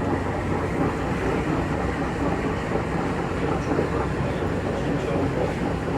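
Coin-operated laundromat washing machine running, a steady mechanical rumble with a low hum.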